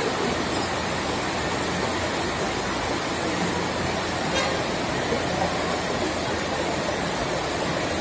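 Forklift engine running steadily, heard as an even mechanical drone with hiss.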